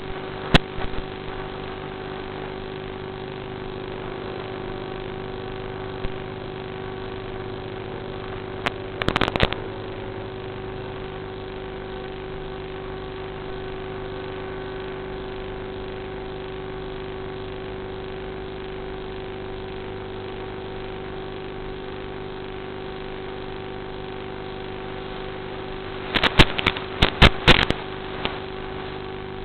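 Phoenix V2 RC plane's electric motor running with a steady hum of several even tones. Brief crackles come about nine seconds in, and a burst of them near the end.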